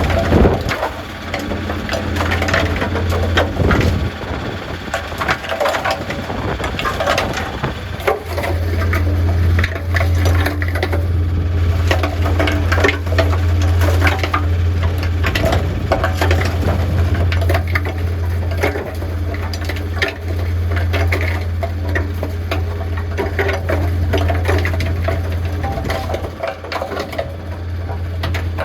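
Concrete mixer running with a steady low hum, while hard material tumbles in the turning drum with constant irregular crunching and knocking, as the mixer is being cleaned.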